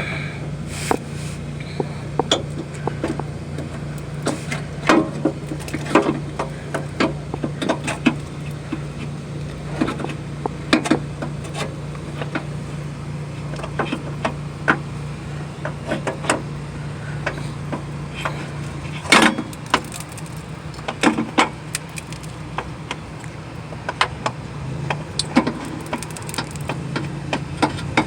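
Irregular metallic clunks and knocks as a new starter motor is worked into its mounting spot under a Jeep Grand Cherokee 4.7, over a steady low hum.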